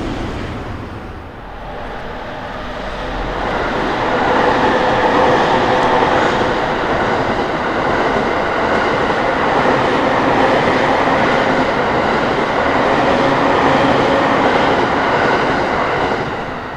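An electric train passing close by on the rails, growing louder over the first few seconds, running steadily for about ten seconds, then fading away near the end.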